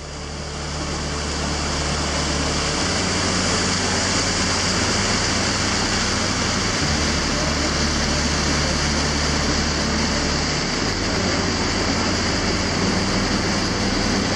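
Rushing water of a mountain torrent in flood after heavy storms, a steady, even rush that fades in over the first two seconds.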